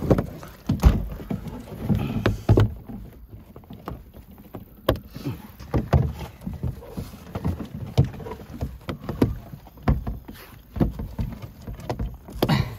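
Irregular knocks, taps and scrapes of a Tucktec folding kayak's plastic hull panels being pressed and fitted together by hand.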